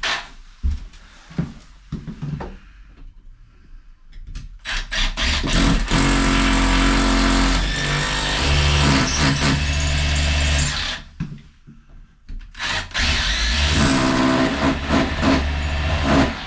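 Handheld power tool motor running in two long spells, about six and then four seconds long, its pitch shifting as it takes load. A few knocks of handling come before.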